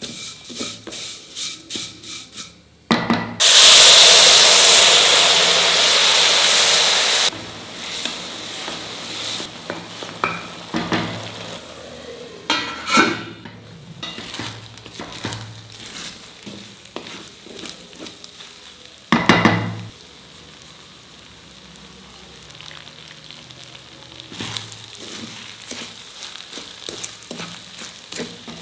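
A spatula scraping and stirring vermicelli in a stainless steel pan, about three strokes a second. About three seconds in, a loud sizzle starts as water hits the hot ghee-roasted vermicelli, lasts about four seconds and cuts off suddenly. After that comes a quieter simmer with scattered stirring, and a brief louder burst near twenty seconds.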